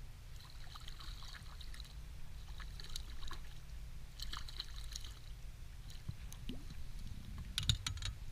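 Lake water splashing and trickling as a hand works in the water beside an inflatable boat to release a caught trout, over a steady low wind rumble on the microphone. A quick burst of clicking and rattling near the end, from handling fishing tackle.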